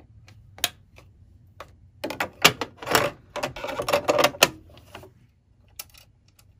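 Metal needle plate of a sewing machine clicking and clattering against the machine bed as it is set back in place and pressed down: a few single clicks, then a burst of rattling clicks from about two seconds in until about four and a half seconds.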